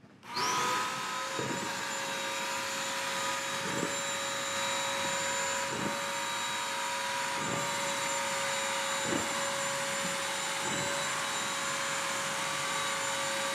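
BISSELL Crosswave wet/dry vacuum switching on and running steadily with a constant motor whine, a soft swell about every two seconds as it is pushed back and forth.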